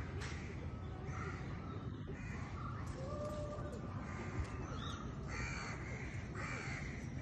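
Crows cawing repeatedly, short harsh calls about once a second, over a steady low rumble.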